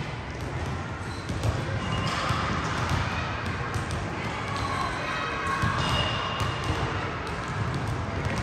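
Basketballs bouncing on a hardwood gym floor during drills, many irregular thuds overlapping, with short high shoe squeaks.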